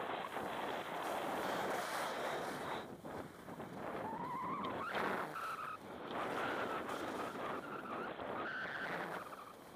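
Skis scraping and hissing over hard-packed snow through a run of turns, with wind rushing on the microphone. From about four seconds in, several brief higher whining tones rise and fall as the skis skid through the turns.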